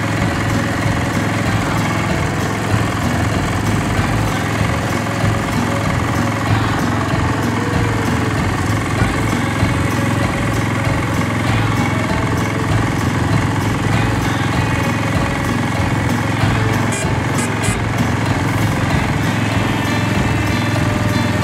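Small engine of a chain-driven Jacobsen utility vehicle running steadily as the vehicle drives along.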